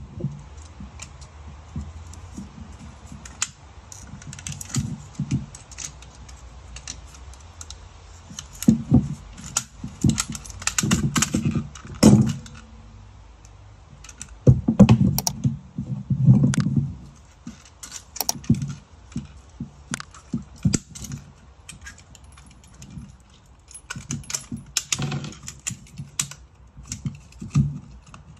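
Small pieces of scrap metal clinking and clattering as they are handled, an irregular run of sharp clicks with clusters of duller knocks.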